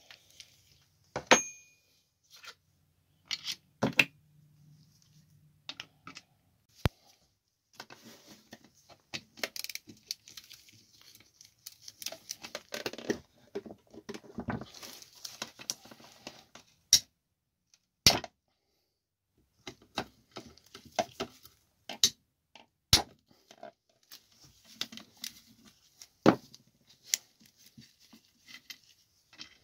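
Engine parts and hand tools being handled: irregular clinks, knocks and scraping, with the loudest, a short ringing clink, about a second in.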